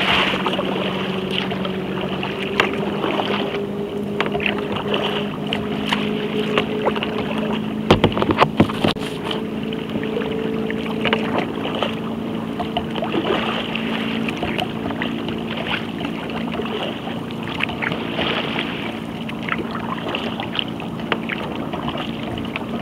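Choppy wake waves slapping and washing against a sea kayak's hull and deck, with a burst of sharp splashes about eight seconds in. A steady low hum runs under the water noise.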